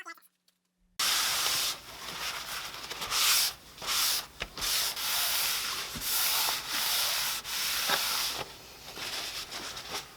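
Hand rubbing across a wooden tabletop in repeated back-and-forth strokes, each a hiss lasting about a second, starting about a second in.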